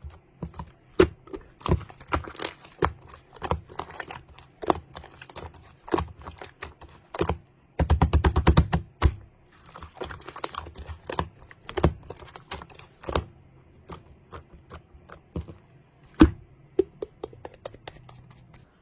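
Irregular sharp clicks and taps of hard objects, like typing. There is a fast run of about a dozen taps about eight seconds in, and a louder single knock near the end.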